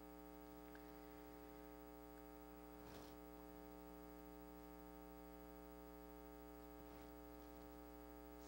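Near silence with a steady electrical mains hum, and one faint brief rustle about three seconds in.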